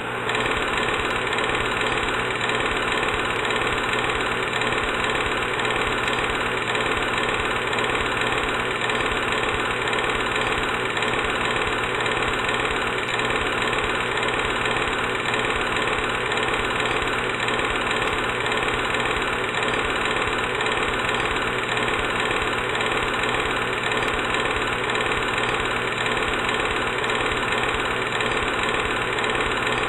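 An engine running steadily at an even speed, with no revving.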